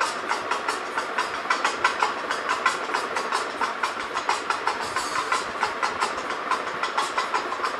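Train running with a fast, even clatter of wheels, several clacks a second over a steady rumble, laid on as a sound effect.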